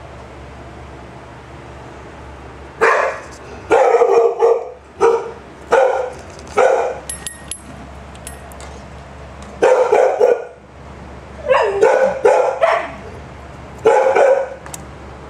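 An animal barking: short, loud barks in irregular bouts of one to three, starting about three seconds in, with a pause in the middle.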